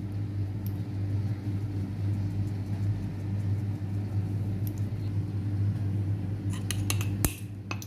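Steady low electrical-sounding hum. A few sharp clicks and light knocks come near the end, as the metal flour sieve is handled and lifted off the bowl.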